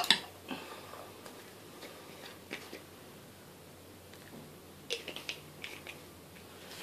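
Light handling clicks from a small plastic food colouring bottle while red colouring is squeezed into buttercream: one sharp click at the start, a few faint taps, then a short run of small clicks about five seconds in.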